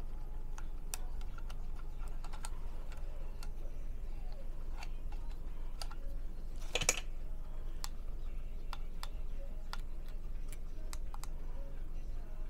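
Scattered light clicks and taps from handling small objects, with one louder rustling scrape about seven seconds in, over a steady low hum.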